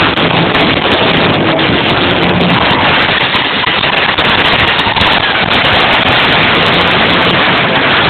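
Live rock band with electric guitar playing at full volume, recorded so loud that the sound is overloaded into a dense, distorted crackle with little clear pitch.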